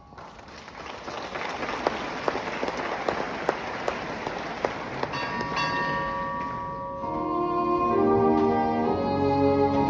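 Theatre audience applauding, with sharp single claps standing out. Sustained orchestral notes come in about five seconds in, and from about seven seconds a brass-led orchestral introduction plays over it, growing louder.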